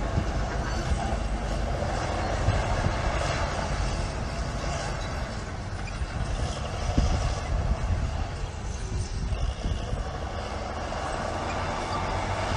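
Diesel engine of heavy earthmoving machinery running steadily, a continuous deep rumble.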